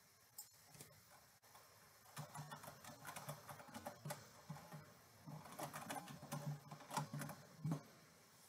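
Typing on a computer keyboard: a few isolated clicks in the first second or so, then a quick run of faint key clicks, ending in a louder keystroke near the end.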